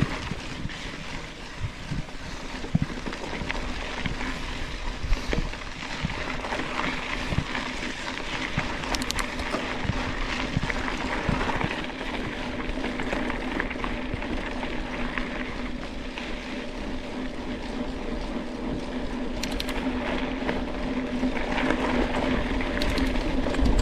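Mountain bike riding along a dirt trail: tyres rolling over loose dirt with a steady rushing noise, and the bike knocking and rattling over bumps now and then.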